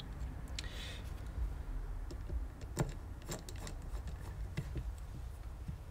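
Scattered small metallic clicks and taps of a screwdriver working the four screws that fasten a part onto a Bing carburettor.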